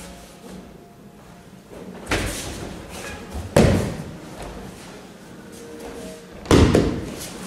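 Aikido student falling onto the training mats during throws: three heavy thuds, the second and third the loudest.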